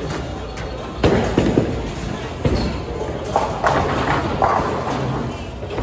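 Bowling ball striking pins: a sharp crash about a second in, followed by several clattering knocks as the pins fall.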